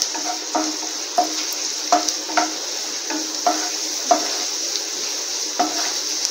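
Cashews and raisins frying in ghee in a nonstick pan with a steady sizzle. A wooden spatula stirs them, knocking and scraping against the pan about every half second.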